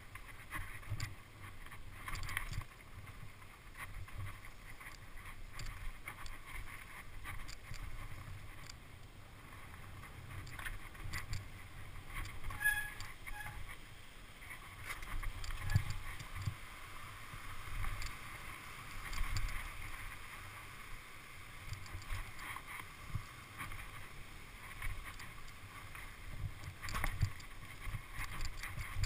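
Mountain bike descending a rough dirt and rock trail, recorded from a camera riding on the bike or rider: wind rumbling on the microphone over the rattle and clatter of tyres and frame across rocks and roots. A brief high squeak near the middle.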